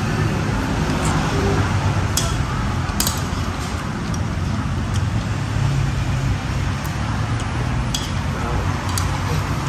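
Steady low rumble of road traffic, with a few sharp clinks of metal spoons and forks against plastic noodle bowls.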